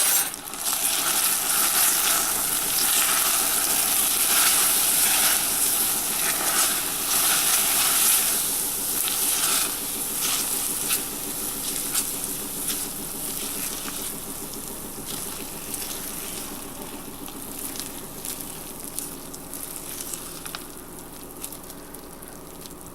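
Spoon stirring hot peanut brittle candy as baking soda makes it foam, the molten sugar hissing with quick clicks of the spoon against the bowl. The stirring clicks thin out about halfway through and the hiss slowly dies down.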